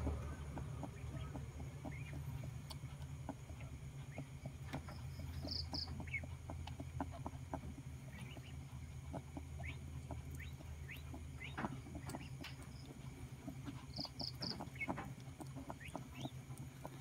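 Doe rabbit licking and mouthing her newborn kit clean: faint, irregular small wet clicks and nibbling sounds over a low steady hum. Short high chirps in groups of three come twice, about six and fourteen seconds in.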